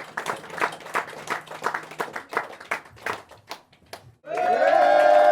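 Small pub audience clapping, the claps thinning out and stopping about four seconds in. Right after a short gap, several voices in the crowd start a loud, held cheer.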